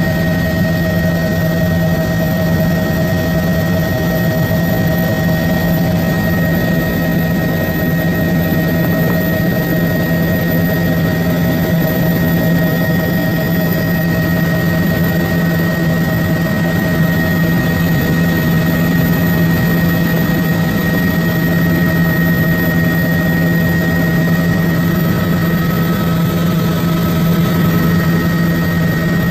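Helicopter in flight, heard from inside the cabin: a loud, steady engine and rotor drone with a constant high whine over it.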